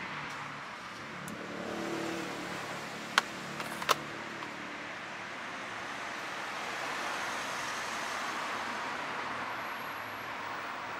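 Steady rushing background noise with two sharp clicks a little after three seconds and just before four seconds, as plastic food containers are swapped and knocked at the crepe cart.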